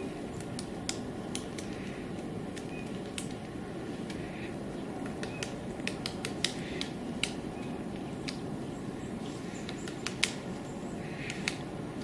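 Woodpecker tapping and pecking at tree bark: irregular sharp taps, a dozen or more, unevenly spaced, with no steady drumroll. A steady low rumble runs underneath.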